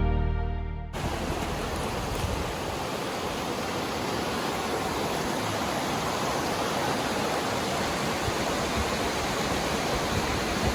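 Steady rushing of a flowing river over rapids, an even hiss with no rhythm. Background music ends about a second in.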